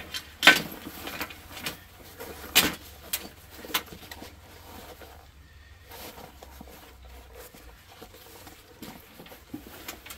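Rustling and handling noise with a few sharp knocks, the loudest about half a second in.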